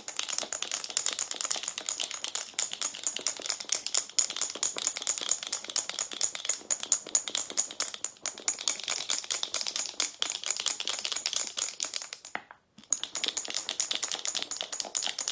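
Marbles rattling inside a jar of cream being shaken hard, a fast, continuous clatter with a brief pause about twelve and a half seconds in. The cream is still liquid and has not yet thickened toward butter.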